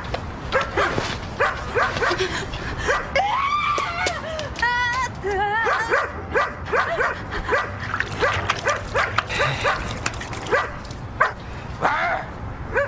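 Dog barking and yapping in a rapid run of short, sharp barks, with a longer wavering whine about four to five seconds in.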